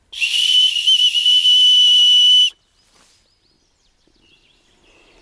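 A whistle blown once: a shrill, breathy tone that wavers slightly in pitch, held for about two and a half seconds, then cut off sharply.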